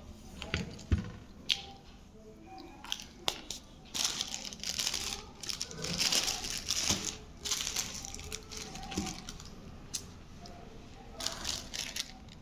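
Crinkling and crackling with scattered sharp clicks as pieces of edible clay and slate pencil are handled, densest from about four to seven and a half seconds in.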